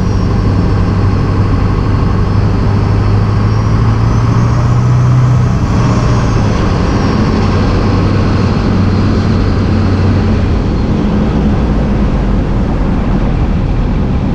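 LB7 Duramax 6.6-litre V8 turbodiesel running steadily, with a faint high turbo whistle from its rebuilt stock turbo with an 11-blade billet compressor wheel that slowly falls, rises and falls again.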